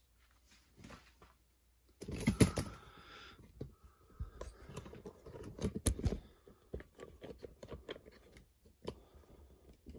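Handling noise from a handheld camera or phone. About two seconds in, a sudden burst of knocks and rustling starts, then uneven clicks, knocks and scrapes carry on as it is carried and swung around.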